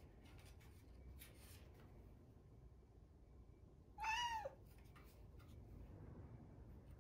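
A young cat meows once, a short call about four seconds in that rises a little and then drops, calling for attention.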